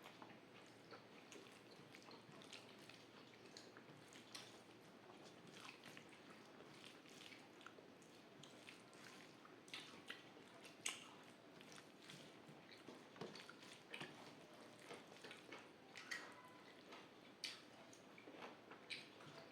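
Faint chewing and wet mouth sounds of someone eating rice with shukto: soft squishes and irregular small clicks, with a few sharper clicks about halfway through and again near the end.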